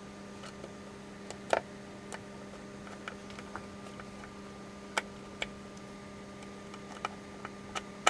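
Scattered small clicks and knocks of ribbon cables and connectors being handled in a Eurorack case, over a steady electrical hum.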